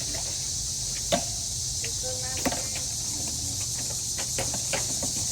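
Steady high-pitched chorus of insects. Two sharp knocks cut through it, about a second in and again about two and a half seconds in, with a few fainter clicks.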